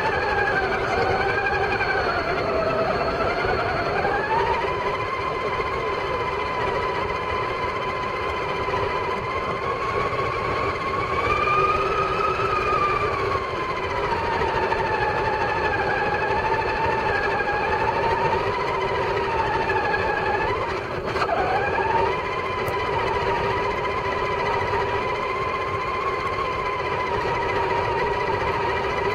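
Electric motor and gears of a Traxxas Summit radio-controlled truck whining as it drives. The pitch climbs a few seconds in and then rises and falls with the throttle. About 21 seconds in, the whine breaks off briefly with a sharp click and then picks up again.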